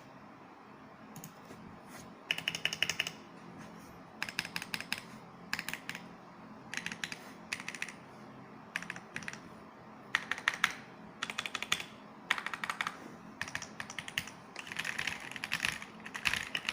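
Typing on an Akko ACR Pro 68 mechanical keyboard with its stock crystal switches and pre-lubed stabilizers: bursts of quick keystrokes, each about half a second to a second long, with short pauses between them.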